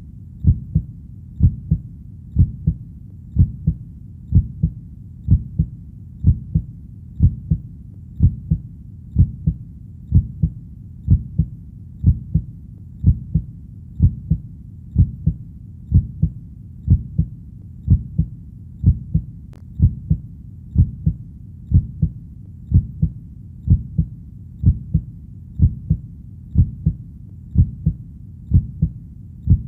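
Steady heartbeat: each beat a low double thud (lub-dub), repeating evenly at about one beat a second over a faint low background rumble.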